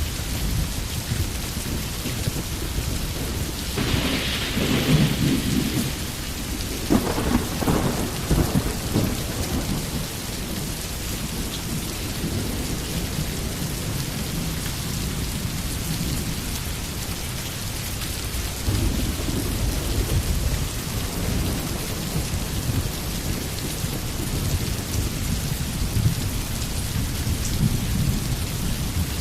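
Steady rainfall with thunder rolling in the background, with the strongest rumbles about four and seven seconds in.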